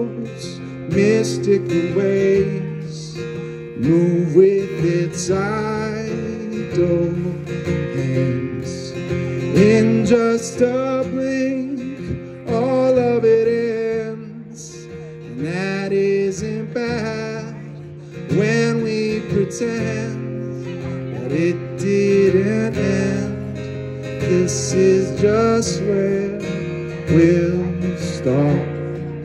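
A solo acoustic guitar strummed and picked, with a man's voice singing over it at times.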